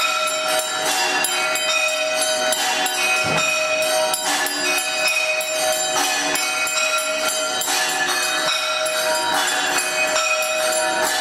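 Hindu temple bells and jingling metal percussion ringing continuously with rapid strikes, the sustained ringing of a temple aarti.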